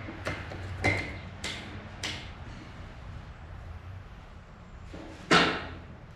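A series of sharp metal clanks and knocks from heavy steel equipment being handled, the loudest about five seconds in with a short ring after it, over a faint low hum.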